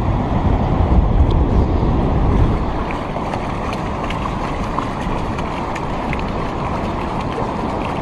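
Wind buffeting the microphone: a steady, loud, low rumbling noise, a little stronger in the first couple of seconds.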